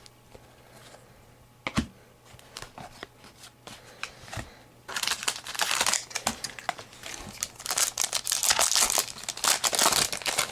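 A trading-card pack wrapper being torn open and crinkled, starting about halfway through and running for several seconds, after a few soft handling clicks.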